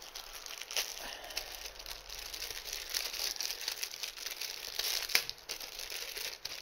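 Plastic packaging and card sleeves crinkling as trading cards are handled: a quiet, continuous run of small crackles and rustles, with a sharper crackle about five seconds in.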